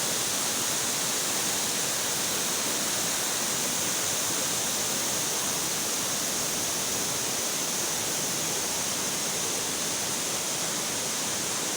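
Steady rush of the Tumpak Sewu waterfall: an even, unbroken hiss of falling water.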